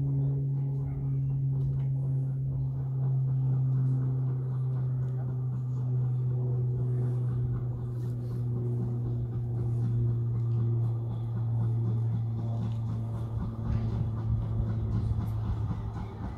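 A steady low engine hum with a slowly sinking pitch. Near the end it grows rougher with rattling as a train draws in.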